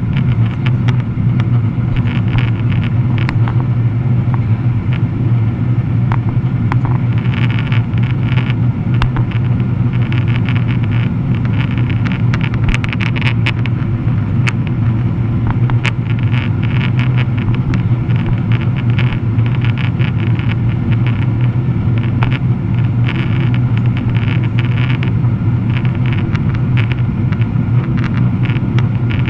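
Cabin noise of a Boeing 777-300ER heard at a window seat as it climbs out after takeoff: the steady low drone of its GE90 engines with rushing airflow, and frequent light clicks and rattles.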